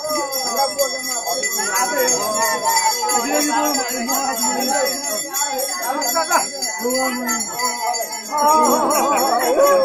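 Bells ringing steadily, shaken in a ritual dance, over the mixed voices of a crowd.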